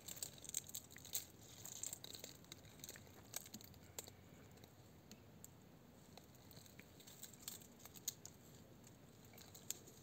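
Tortoise biting and chewing a strawberry: faint, scattered clicks and soft tearing sounds, a little busier in the first couple of seconds.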